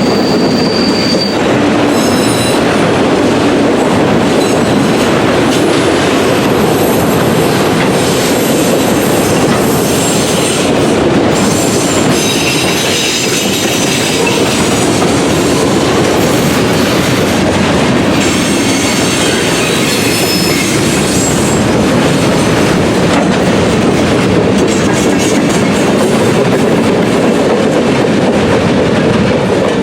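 Freight train cars rolling past, a steady loud rumble of steel wheels on rail with clacking at the rail joints. High-pitched wheel squeal comes and goes several times.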